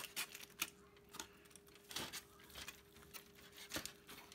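Chef's knife slicing through a roasted tri-tip that sits on aluminium foil: a run of irregular short scrapes and foil crinkles, over a faint steady hum.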